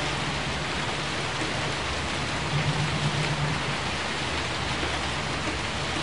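Steady rain falling, an even hiss of drops.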